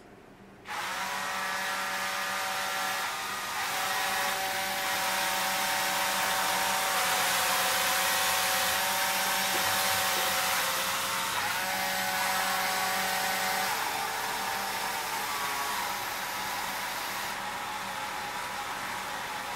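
Motors of a homemade six-axis motion-control camera rig driving the camera to a stored position: a whine of several steady tones over a hiss, starting suddenly, with the tones sliding to new pitches twice. Near the end the whine fades, leaving mostly the hiss.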